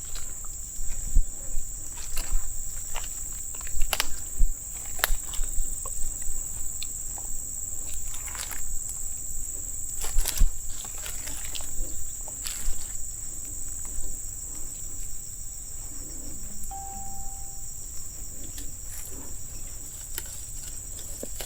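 A steady high-pitched insect drone, with irregular crunches and snaps of footsteps through dry leaf litter and palm fronds. A brief steady tone sounds once, about three-quarters of the way through.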